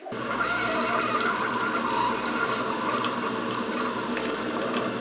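Keurig single-serve coffee maker brewing, its pump humming steadily while a thin stream of coffee pours into a ceramic mug; the sound starts suddenly.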